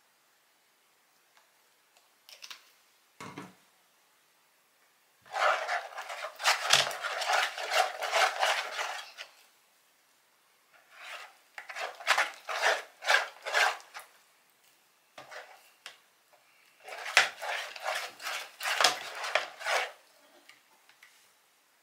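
A utensil scraping and stirring in a bowl, as when mixing slime, in three spells of quick repeated strokes. A couple of light knocks come first.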